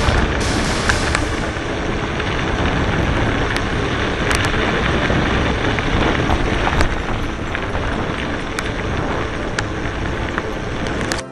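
Wind buffeting the microphone of a camera mounted on a mountain bike's handlebars, along with the rumble of tyres on a loose gravel track. Scattered sharp clicks and rattles come from the bike and stones.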